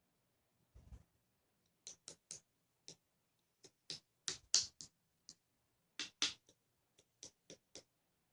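Clear slime being squeezed and pressed by hand, giving a string of sharp clicks and pops at an uneven pace, with a duller thump about a second in.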